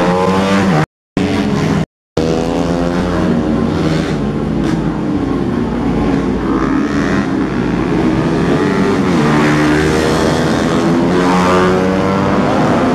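Racing motorcycle engines at high revs passing one after another, their pitch rising and falling as they accelerate and go by. The sound cuts out twice, briefly, about one and two seconds in.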